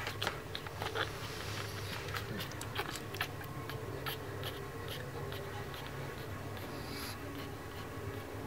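Soft scratchy rustling and many small scattered clicks as newborn pug puppies squirm against their mother on a fleece blanket, over a low steady hum.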